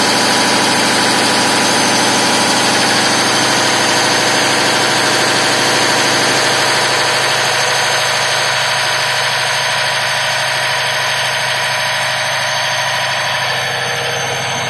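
Large Cummins diesel engine of a 1250 kVA generator set running loud and steady, growing a little fainter over the second half.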